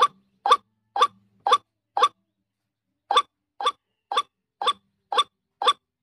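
Female white-breasted waterhen (ruak-ruak) calling: short clipped notes repeated about twice a second, five in a row, then a pause of about a second, then six more.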